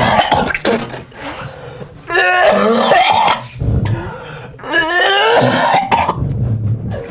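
A man coughing and gagging in about three strained heaves, with rising retching groans, in reaction to a mystery food he has just been fed.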